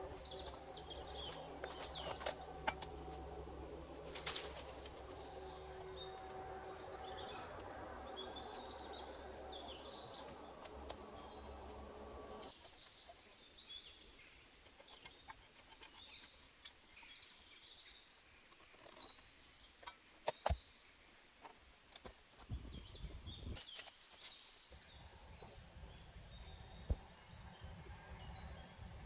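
Small birds chirping and calling, with scattered sharp knocks or clicks. A low steady hum underneath stops abruptly about halfway through.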